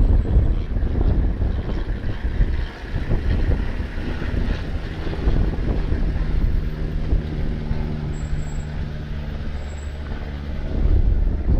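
A motor vehicle's engine running, under an uneven low rumble; its steady hum is clearest from about five seconds in until near the end.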